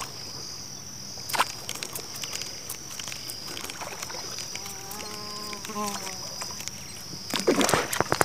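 Steady high-pitched buzz of insects over quiet river water. Near the end comes a burst of splashing at the surface, a tucunaré striking the lure.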